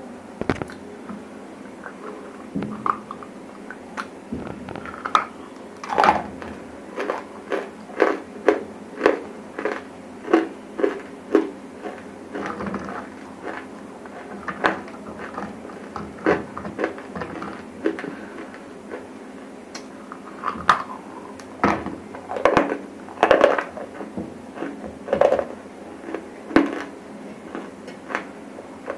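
Dry grey clay lumps bitten and crunched right at a lavalier microphone: a string of sharp crunches and cracks, often one or two a second, coming in bunches with short lulls between.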